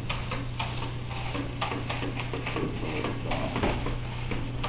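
Small wheeled line-following robot driving along its track: rapid, irregular light ticking over a steady low hum.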